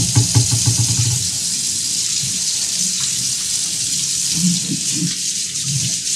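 A steady stream of water from a pull-down spring faucet's sprayer splashing into a stainless steel sink, swept around to rinse the sink out.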